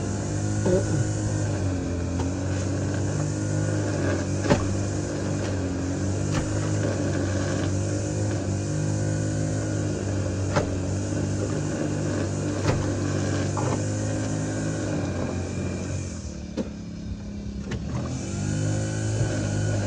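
An engine running steadily, its pitch drifting a little, with a few sharp clicks and knocks over it.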